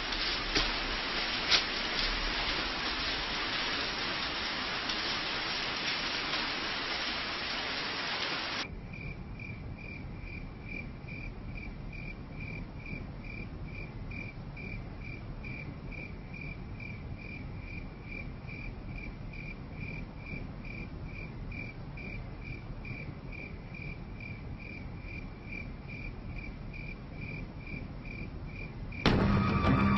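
Steady rain that cuts off suddenly about nine seconds in. It gives way to crickets chirping in a regular rhythm, about two chirps a second.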